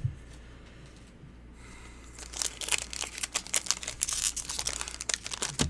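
Foil booster pack wrapper crinkling as it is handled, with dense crackles starting about two seconds in.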